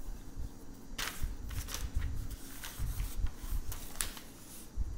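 Rustling with scattered soft clicks over a low rumble.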